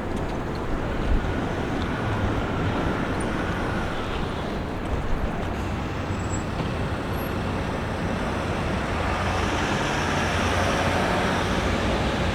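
Steady road traffic noise from passing vehicles, a continuous rumble and hiss.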